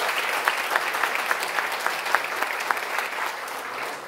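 Audience applauding: a dense patter of many hands clapping that tapers off near the end.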